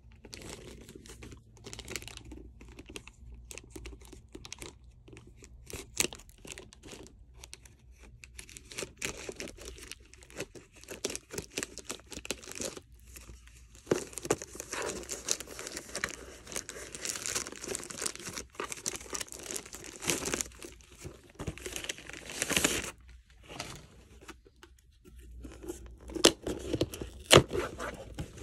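A plastic poly mailer cut with scissors, then torn and crinkled as it is pulled open: scattered snips and crackles at first, then a longer stretch of dense rustling and tearing about halfway through, and more crinkling near the end.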